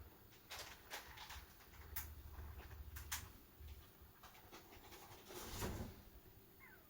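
Kitten's faint sounds during her first toilet: a few light clicks and scratches, a short breathy rustle, and a thin high squeak that falls in pitch near the end.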